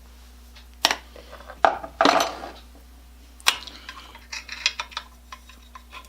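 Metal tools and small parts handled on a workbench: a few sharp clinks and knocks, a short rattle about two seconds in, then lighter clicks.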